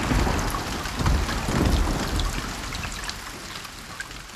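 Audience applauding at the end of a song, a dense patter of clapping that gradually fades away.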